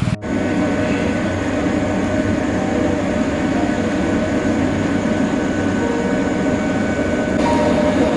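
Train running, a steady rolling rumble with faint steady tones underneath; the sound shifts slightly about seven seconds in.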